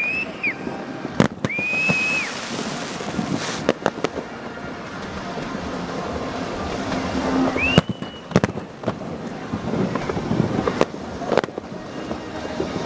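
Fireworks display: scattered bangs of bursting shells over a steady crackle, with a few short whistles that rise to a high note, from whistling shells going up.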